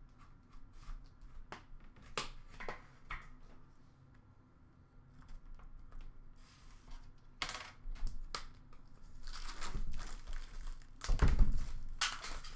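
Plastic shrink wrap being cut and torn off a sealed trading card box: soft scattered rustles and clicks at first, then louder crinkling and tearing over the last few seconds, with a thump about eleven seconds in.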